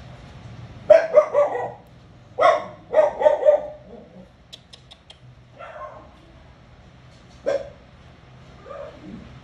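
A dog barking: a quick run of barks about a second in, another run a second or so later, then a few single barks spaced out toward the end.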